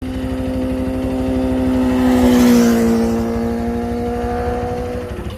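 High-displacement motorcycle engine running at steady revs as it passes by, loudest about halfway through, where its pitch drops slightly as it goes away.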